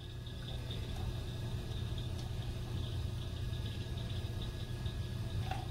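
Steady low hum of running machinery, with a faint even hiss above it.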